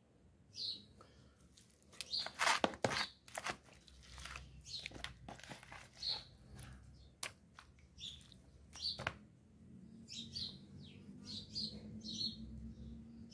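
Small birds chirping repeatedly in short high calls, over sharp knocks and crackles from handling raw chicken pieces in a plastic bowl, loudest about two to three seconds in.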